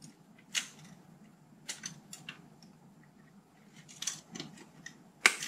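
Wire cutters snipping through the cable to the cassette deck's drive motor, disconnecting it, heard as a series of short sharp clicks and snips with small handling taps, the loudest near the end.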